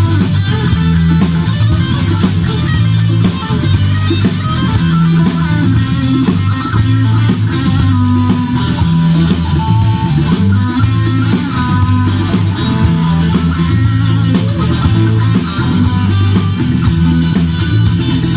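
Instrumental rock intro: electric guitar and bass over a steady drum beat, without vocals.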